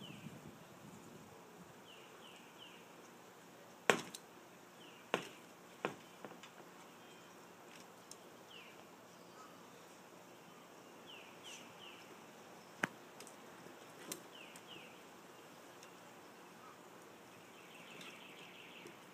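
A few sharp, isolated clicks, unevenly spaced, over a quiet background: the first, a little under 4 s in, is the loudest, then two more soon after, and two more past the middle. Faint high chirps come in quick groups of two or three now and then.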